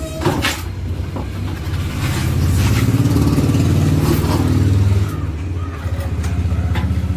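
A 1960 Royal Enfield Bullet single-cylinder engine being kicked over without firing, because the tank is dry of petrol. A low, pulsing mechanical drone swells from about two seconds in and cuts off suddenly about three seconds later.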